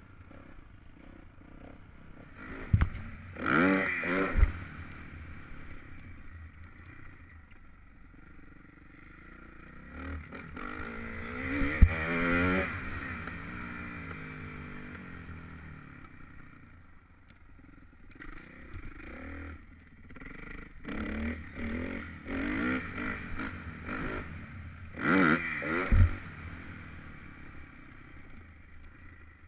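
Dirt bike engine heard from the rider's position, revving hard in three surges that rise and fall in pitch, with quieter running between them. A few sharp knocks come with the surges.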